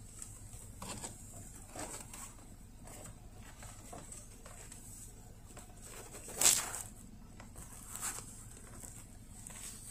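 Low steady hum inside a car cabin, with a few soft rustles and one louder brush about six and a half seconds in, from a jacket sleeve rubbing close to the microphone.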